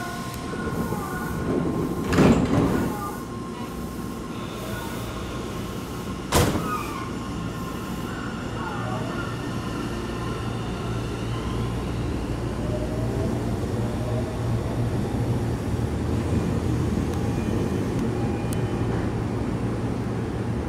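Doors of a Tobu 30000-series commuter train sliding shut about two seconds in, followed by a sharp knock a few seconds later. Then a Tokyo Metro 10000-series train pulls in and brakes to a stop, its motor tones gliding down and up over a steady low hum that slowly grows louder.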